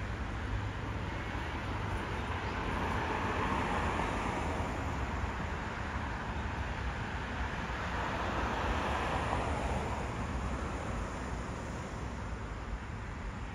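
Road traffic noise: a steady low rumble, with passing vehicles swelling twice, about a quarter of the way in and again past halfway.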